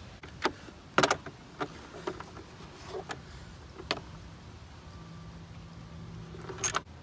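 Ratchet wrench and socket extension working the engine cover bolts: scattered sharp metal clicks and clanks, the loudest about a second in, and a short rattle near the end.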